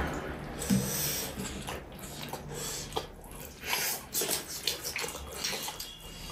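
Close-miked wet eating sounds: irregular chewing and lip-smacking clicks over a meal of rice and curry.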